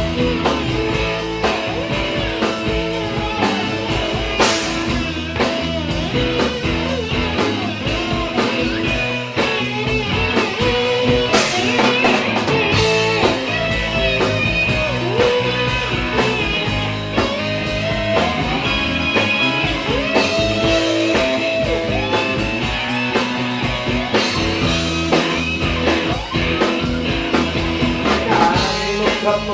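Rock music played by a band: guitar over bass and drum kit, with cymbal crashes about four and eleven seconds in.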